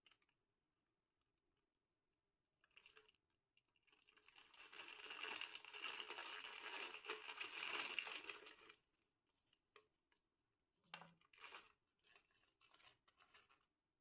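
Plastic snack packet being torn open in one drawn-out rip lasting about five seconds, followed a second later by a few short crinkles of the wrapper.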